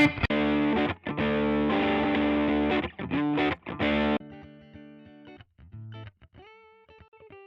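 Electric guitar played through a drive preset on an IK Multimedia TONEX MAX amp-modelling pedal. Loud distorted chords with short stops run for about four seconds, then quieter single notes follow, one bent up and held.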